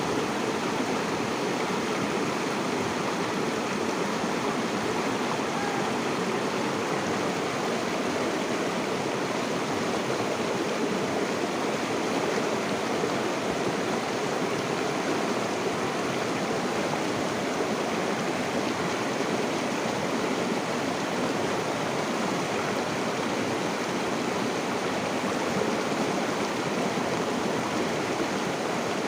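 River water flowing and splashing over rocks, a steady even rush without breaks.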